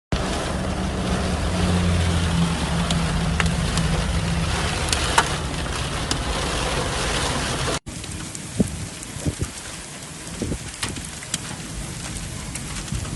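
Heavy rain pouring down, with scattered sharp hits of drops or hail against surfaces; over the first half a steady low hum runs underneath, then a sudden cut to a quieter stretch of rain with scattered knocks.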